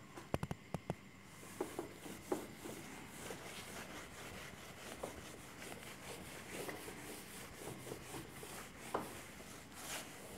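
Whiteboard duster rubbing across the board, wiping off marker writing, with a few sharp taps in the first second.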